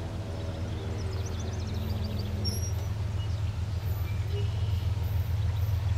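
CSX freight train approaching, its lead diesel locomotive running with a steady low rumble that grows louder as it nears.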